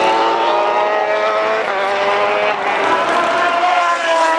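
Several motorcycle engines running at high revs, sustained and steady, their pitch drifting slowly and falling near the end.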